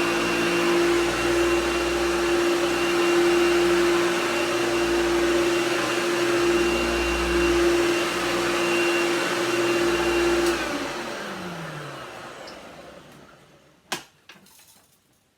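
Vintage Hoover vacuum cleaner running with a steady hum, then switched off about ten seconds in, its motor winding down with a falling tone. A single sharp click comes near the end.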